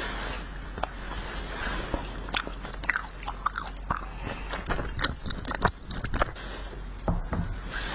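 Wax bottle candy being bitten and chewed, with many sharp, irregular crunches and clicks.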